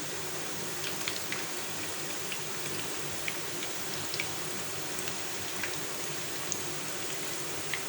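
Battered chicken pakora pieces deep-frying in oil: a steady sizzle with scattered small pops and crackles.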